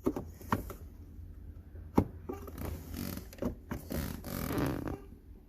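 Sharp clicks and knocks of a car's manual shifter assembly being worked by hand, with a loud one about two seconds in, followed by irregular scraping and rubbing of the parts as a spring-loaded piece is pried at.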